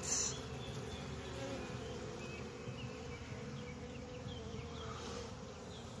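Many honeybees buzzing at a hive entrance, a steady, slightly wavering drone; the beekeeper says the bees are fighting in the hive.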